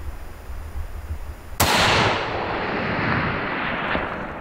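A single hunting rifle shot about a second and a half in, followed by a long rolling echo that dies away over about three seconds.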